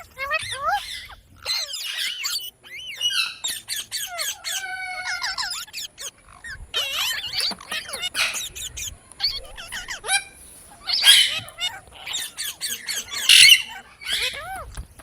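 Pet Indian ringneck parakeet calling and chattering in a run of short chirps, squawks and whistled glides, with a few louder squawks in the second half.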